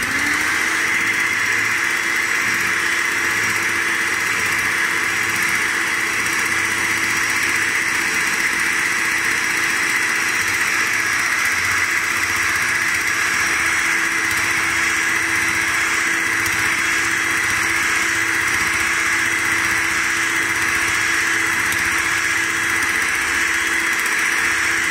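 Electric hand mixer running, its twin beaters whisking eggs and sunflower oil into cake batter. The motor comes up to speed in the first instant, then holds one steady whine.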